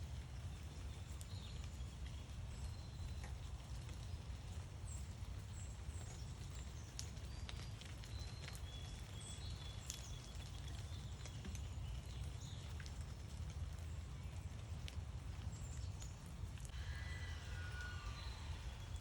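Outdoor backyard ambience: a steady low rumble under faint, scattered bird chirps and a few sharp ticks. Near the end, a bird calls in a quick series of chirps.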